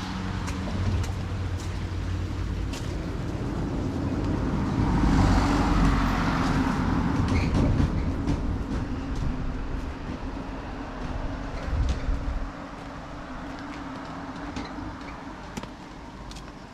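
A vehicle's engine running, its sound swelling to a peak about five seconds in and then fading away.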